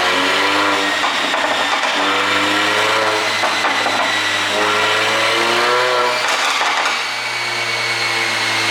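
Mercedes-AMG A45's turbocharged 2.0-litre four-cylinder revved again and again, its pitch climbing with each blip and dropping off between them. Scattered crackles from the exhaust come on the lift-offs, the pops of an ECU pop-and-bang tune.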